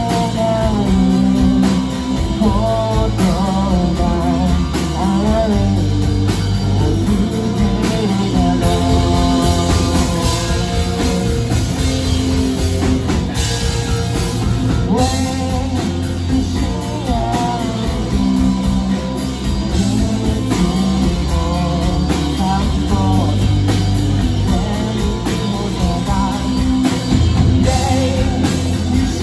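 Rock band playing live: a male singer over electric guitars, bass guitar and a drum kit.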